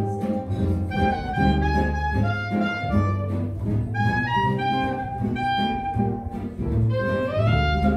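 Live jazz combo playing a jazz standard: a lead melody line gliding between notes over acoustic guitar chords and a walking bass line.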